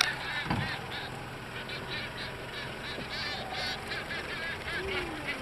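A flock of seabirds calling over open water: many short, arched honking calls repeating and overlapping throughout.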